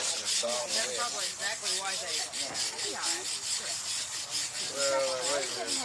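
Quick, even scrubbing strokes on a gravestone during cleaning, with faint voices in the background.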